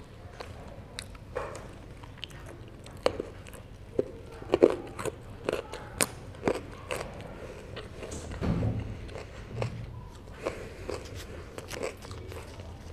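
Close-miked chewing and biting of herring: a steady run of sharp, wet mouth clicks, loudest about halfway through, with a brief low sound a little after.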